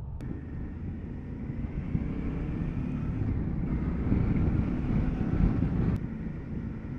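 Motorcycle engine running while under way, with wind noise on the microphone; it grows a little louder from about two seconds in.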